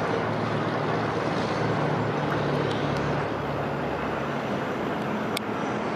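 Steady outdoor rushing noise with a faint low engine hum underneath, and one brief high click about five seconds in.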